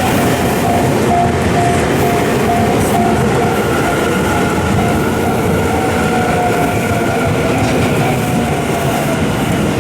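Train passing close by at a Japanese level crossing, a loud steady rumble of the cars going through. Over it the crossing's warning alarm rings a pulsing tone, about two rings a second.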